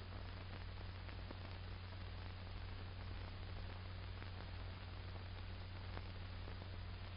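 Steady soundtrack hiss with a low mains hum and a few faint clicks, the background noise of an old film's optical soundtrack; no other sound stands out.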